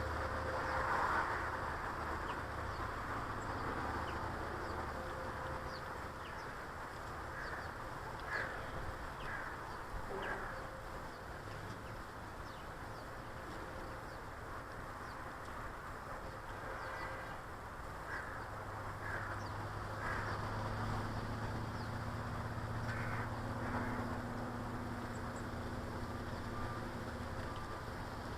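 Garden birds calling in short, scattered chirps and harsh notes, in small clusters, over a steady low background rumble.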